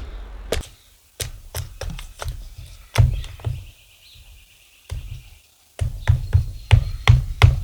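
Small pieces of timber being chopped for cooker fuel: a run of sharp wooden strikes, a few a second, with short pauses about four and five and a half seconds in, then coming faster.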